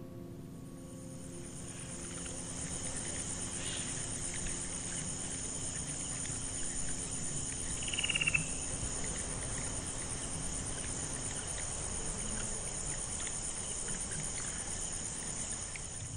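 Insects chirping in a steady, high-pitched pulsing trill, with a brief falling chirp about eight seconds in.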